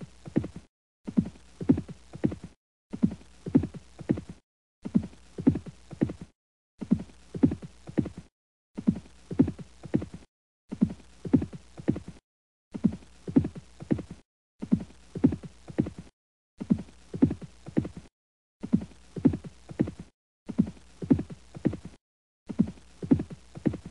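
Horse hooves galloping: quick clusters of a few hoofbeats, each cluster cut off by a short silent gap and repeated about every two seconds, like a short loop played over and over.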